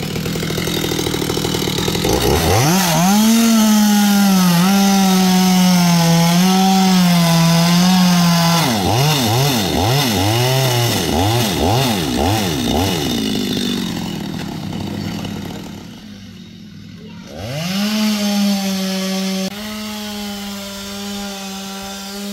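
Stihl two-stroke chainsaw revved to full throttle about two seconds in and held high with a slight wavering, as when cutting through wood. Its engine speed then rises and falls quickly several times and drops back to a lower, quieter run. It revs up and holds high again near the end.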